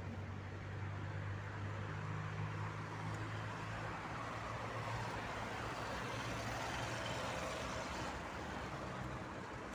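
Steady road traffic noise, a low hum under a wash of tyre and engine sound that swells a little mid-way.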